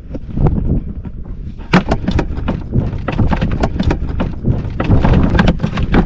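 Wind buffeting the microphone with a low rumble, under a rapid, uneven run of sharp knocks and slaps that grows busier about two seconds in.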